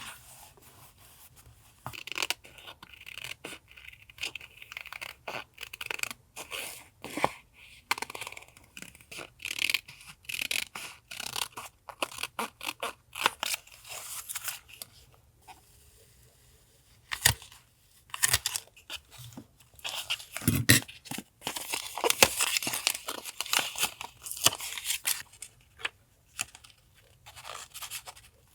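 Paper being handled and torn: crisp rustling and tearing in irregular bursts, with a short pause about halfway through.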